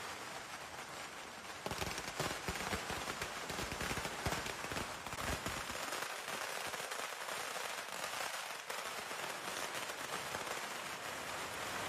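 Strings of firecrackers crackling in a rapid, dense, continuous rattle, growing louder about two seconds in.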